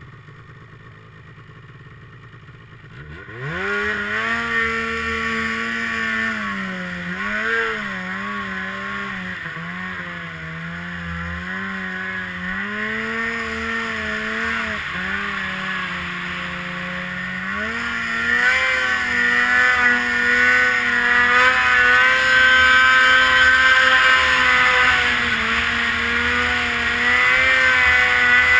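Polaris RMK mountain snowmobile's two-stroke engine, low and quiet at first, revs up sharply about three seconds in. It then runs hard with its pitch rising and falling as the sled pushes through deep powder, getting louder for the last third.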